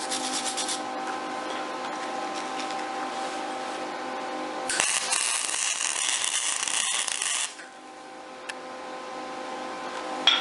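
Lincoln Pro 175 MIG welder's arc crackling and sizzling for a bead of about three seconds, starting about halfway through, over a steady hum.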